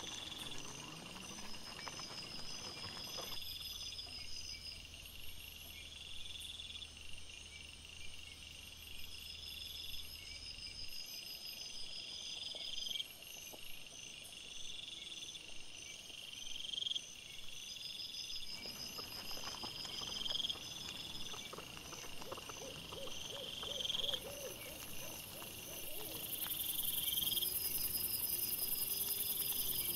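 Night insects, crickets or bush-crickets, chirping in short high phrases that repeat every couple of seconds. Near the end there are a few faint, low, wavering sounds.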